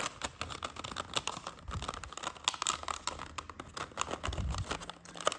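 3D-printed plastic strips being handled and threaded through one another, giving a run of irregular small clicks, crackles and rustles.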